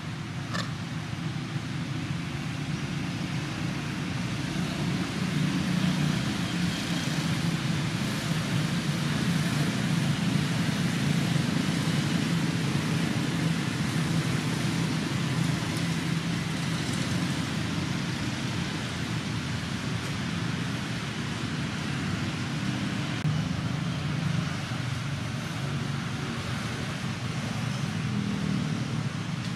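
Steady low rumble of distant road traffic with a hiss over it, unbroken throughout.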